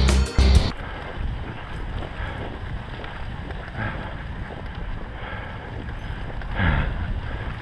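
Rock music cuts off under a second in. After it comes a steady rushing of wind on a head-mounted camera microphone, mixed with the hiss and scrape of a dog sled's runners gliding over a packed snow trail as huskies pull it.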